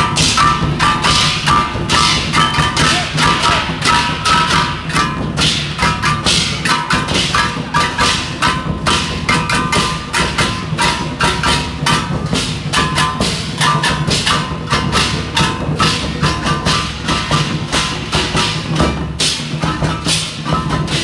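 Taiwanese temple procession percussion, drums with ringing gongs and cymbals, struck loud and fast in a dense, unbroken rhythm.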